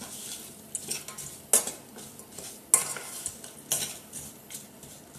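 A spatula stirring and scraping diced apples around a stainless steel saucepan, with a few sharp knocks against the pan, the loudest about a second and a half in and near the three-second mark, over a faint sizzle of sugar heating to caramelize.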